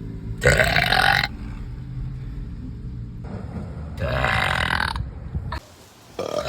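A girl burping loudly: two long burps, the first about half a second in and the second about four seconds in, then a short third near the end.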